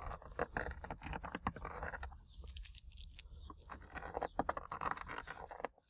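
Scratching and scraping on the hard plastic cargo-area trim panel as the outline of a cut-out is scribed into it, in two spells of a couple of seconds each with small clicks throughout.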